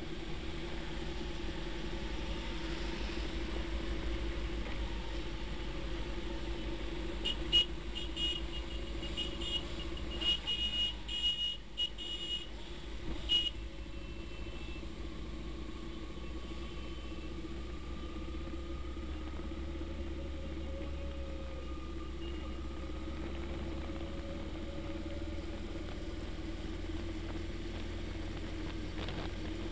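Steady engine hum and road noise from a vehicle cruising at motorway speed. About a quarter of the way in there is a burst of short, high-pitched beeps, a dozen or so over some six seconds, which then stop.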